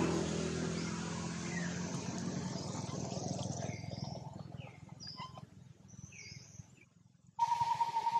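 A motor vehicle's engine hum, steady in pitch, fading away over the first few seconds. Short high-pitched calls follow. After a sudden jump in level near the end comes a louder steady tone that breaks off and resumes.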